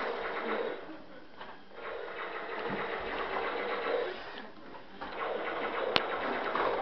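Small electric motors of a remote-control toy quad whirring, a steady buzzing hum that runs in three spurts as it is driven on and off. A sharp click about six seconds in.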